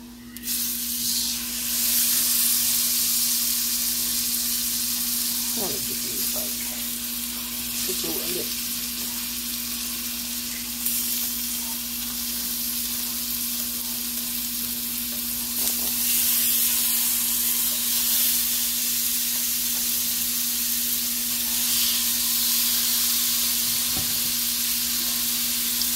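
Seasoned lamb chops sizzling as they are laid one by one into a hot pan of foaming butter, oil and garlic. The sizzle jumps up sharply about half a second in and grows louder again partway through as more chops go in.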